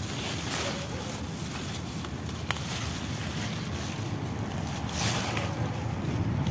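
Wind buffeting the microphone, a steady low rumble, with a few brief rustles of leafy plants being handled, the clearest about five seconds in.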